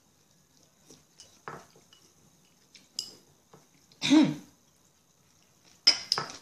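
Scattered light clinks of utensils against dishes while eating, with a short, loud throaty vocal sound about four seconds in and a quick cluster of sharp clicks near the end.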